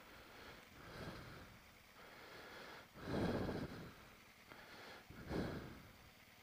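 A person breathing inside a motorcycle helmet: three soft breaths about two seconds apart, the loudest about three seconds in.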